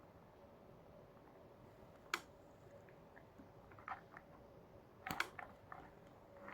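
A few faint, short clicks and light knocks from a stainless steel wristwatch being handled, a couple of seconds apart.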